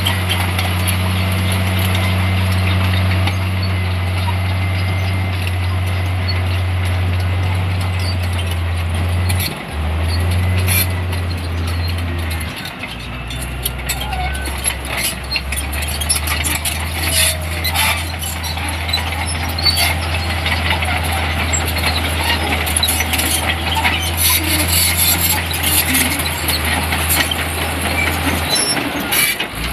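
Diesel engine of heavy earthmoving machinery running steadily while working. The engine note steps lower about twelve seconds in, and from about ten seconds on it is joined by many short metallic clanks and squeaks.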